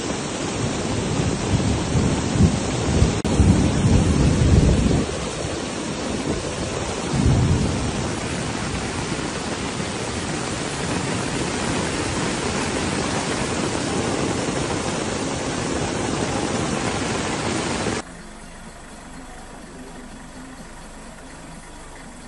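Steady rushing noise of a river in flood under heavy rain, with heavy low rumbles in the first few seconds. About eighteen seconds in it cuts to a much quieter, steady rush of floodwater.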